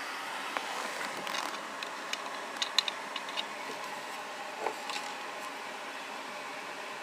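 Steady fan-like background hiss. Over it come a scatter of light clicks and knocks from something being handled, the sharpest cluster near the middle.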